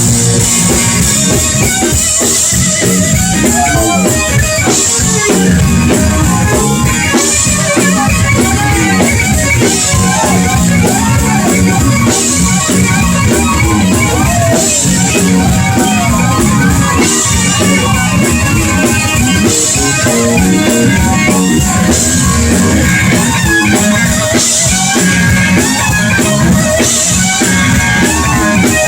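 Live blues-rock band playing: an electric guitar lead with bending notes over drums and bass, cymbals crashing at regular intervals.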